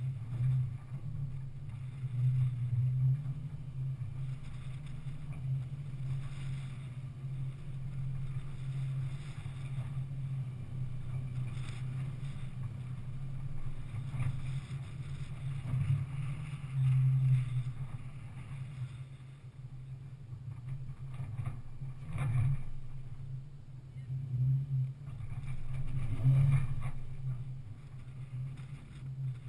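Off-road vehicle's engine running at low revs as it crawls up a rocky gully, a steady low drone that swells a few times, with a few short knocks.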